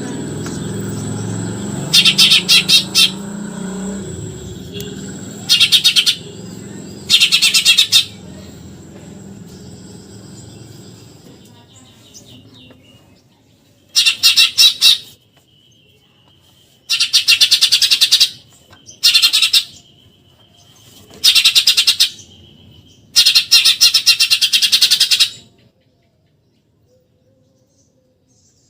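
Eurasian tree sparrow giving its rapid, buzzy chattering 'tembakan' song in about eight separate bursts of one to two seconds each. A low rumble underneath fades out over the first ten seconds.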